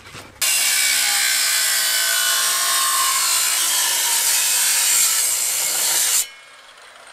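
Angle grinder cutting into steel: a loud, steady grinding screech that starts abruptly about half a second in and cuts off suddenly about six seconds in.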